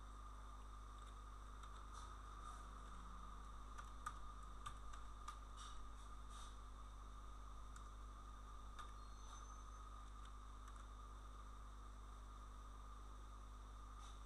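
Faint room tone of a recording setup: a steady low electrical hum and a steady faint whine, with scattered soft clicks of a computer keyboard and mouse, mostly in the first half.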